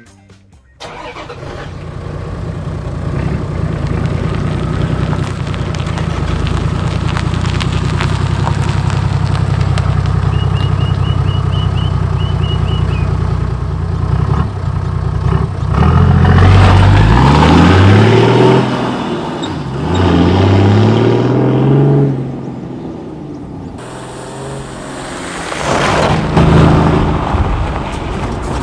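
Toyota Land Cruiser Troopcarrier's engine through a new 3-inch stainless Redback exhaust, idling steadily. It is then revved twice, each time rising in pitch and falling back. Near the end it pulls away under acceleration.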